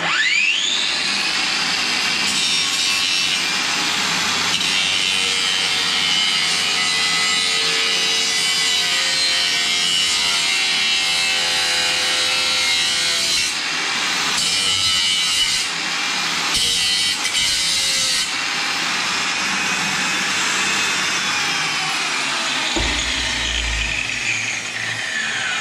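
Angle grinder with a cutting disc cutting into a large metal pipe. The motor spins up at the start, the disc runs loudly and steadily through the cut, and it winds down at the very end.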